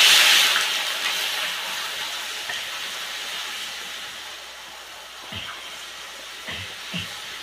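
Spice masala dropped into hot oil in a kadhai: a loud sizzle and hiss that slowly dies down as it fries. Near the end come three light knocks of the metal spoon against the kadhai.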